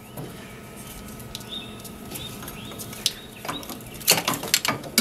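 A cluster of sharp plastic and metal clicks and knocks in the second half as the cruise control actuator and its bracket are worked loose and lifted out of the engine bay. Faint bird chirps come a few times in the first half.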